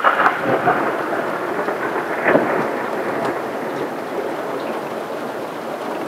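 A thunderclap starts suddenly with a crackle, has a second loud crack about two seconds in, then rumbles and slowly fades. Steady rain falls throughout.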